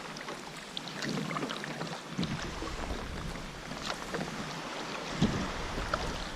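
Water splashing and dripping around a kayak, with many small splashes and drips. Low gusts of wind buffet the microphone about two seconds in and again about five seconds in.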